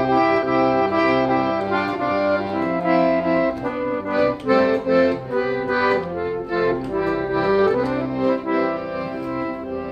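Instrumental break of a song between sung verses: a melody of held notes over a chordal backing, with no singing.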